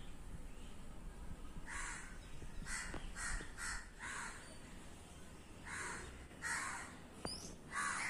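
Crows cawing: harsh caws, a quick run of four around the middle and a few single ones after. A short high falling whistle from another bird comes near the end.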